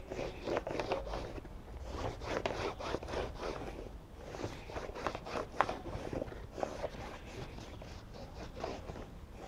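Hands working a Schwalbe Magic Mary tubeless tyre on a mountain-bike rim: rubber rubbing and scraping against the rim with irregular squeaks and small clicks as the bead is pushed into place.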